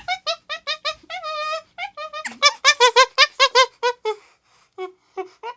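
Turkey gobbling: runs of short, rapid warbling notes, with the loudest, densest run about halfway through and a few scattered notes near the end.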